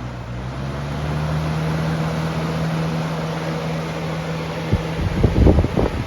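Lasko 3723 box fan switched to high speed: its motor hum rises in pitch and the rush of air grows louder over the first second or so, then holds steady. Near the end, irregular low buffeting thumps break in over it.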